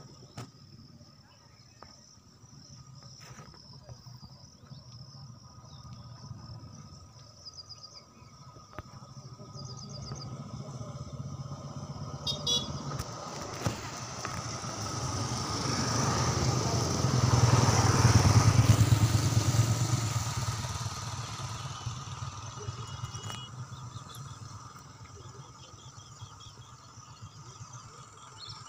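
A motor vehicle approaches, passes close by a little past the middle, and fades away, its engine hum and road noise rising and falling. Insects chirr steadily underneath.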